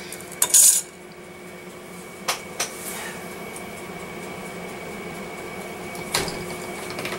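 Clay tools being handled on a marble work surface: a short scrape about half a second in, then a few light knocks, over a faint steady hum.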